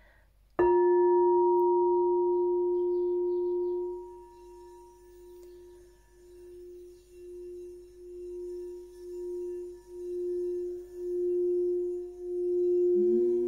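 Frosted quartz crystal singing bowl tuned to the heart tone, struck once with a mallet about half a second in and left ringing on one steady tone. From about four seconds the mallet circles the rim, making the tone swell about once a second and grow louder, with a second tone joining near the end.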